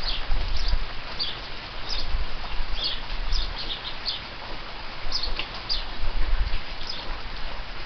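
Steady rain falling, with house sparrows chirping in short, scattered calls throughout. A low rumble comes and goes underneath.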